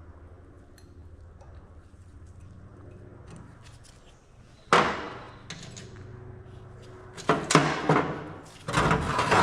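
Low steady hum, then a sharp metallic clack about halfway through, followed near the end by a run of knocks and clatter as metal parts and tools are handled.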